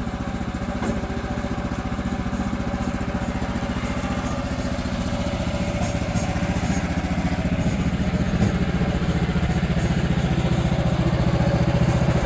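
Sawmill's engine running steadily at idle while it warms up, with an even, rapid firing beat; it grows a little louder over the last few seconds.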